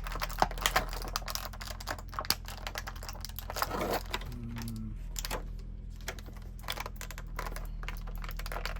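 Rapid, irregular small clicks and crackles of plastic packaging being handled and pried open to free an action figure's alternate head, over a steady low hum.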